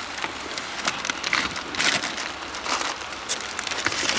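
Shopping bags rustling and crinkling as they are handled close by, a string of irregular crackles with a few louder crinkles.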